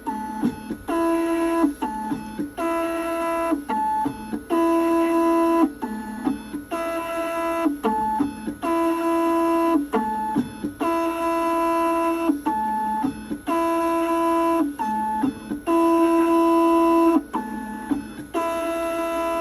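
Keyline 994 laser key machine decoding a key: its stepper motors whine at one steady pitch in runs of about a second, stopping and starting roughly a dozen times with small clicks between moves.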